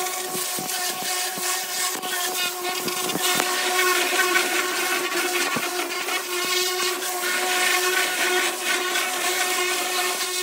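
Pressure washer running with a steady pump hum under the hiss of the water jet, rinsing chemical-stripper residue off the bare steel of a 1936 Ford pickup cab.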